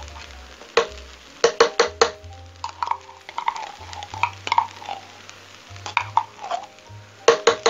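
Metal spoon scraping and knocking inside a tin can while scooping out thick tomato paste, with sharp clinks in a cluster about a second and a half in and again near the end. A low bass line of background music runs underneath.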